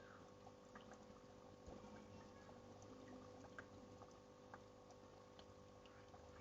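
Near silence: a faint steady hum with a few scattered small clicks.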